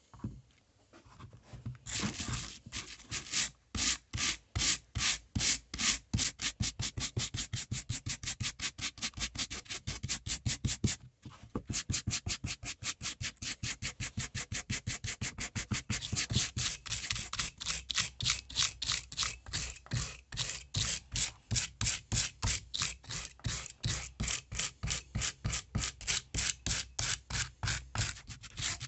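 Hand-held brass wire brush scrubbing a piece of rotten wood, about three to four quick back-and-forth strokes a second, starting about two seconds in, with one short pause about a third of the way through. It is stripping the soft, rotted fibres off the surface down to firmer wood.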